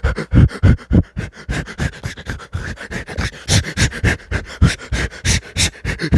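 Close-miked mouth and breathing noises: quick wet smacks, clicks or crunches, about five a second, with breathing right at the microphone.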